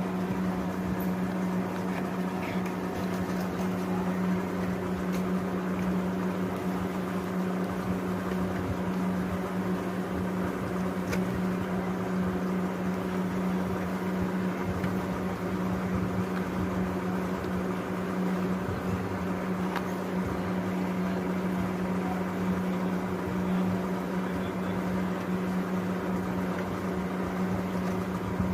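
Small electric motor running steadily: a constant, even hum with no starts or stops.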